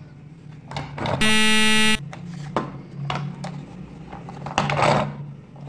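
A loud, flat electronic buzz lasting under a second, with clicks and rattles of a plastic toy train being handled before and after it.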